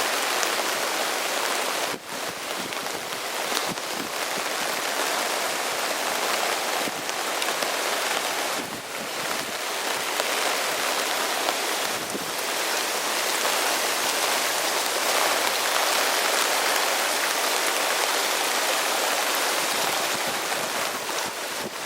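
Floodwater running down a road like a river: a steady, loud rush of water, with the rainstorm falling on it.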